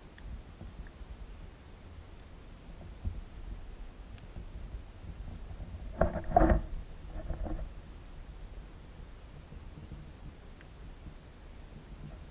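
Muffled underwater sound picked up through a submerged camera's housing: a low rumble with faint, regular high ticking, and about six seconds in a short cluster of rapid knocks, followed by a weaker one a second later.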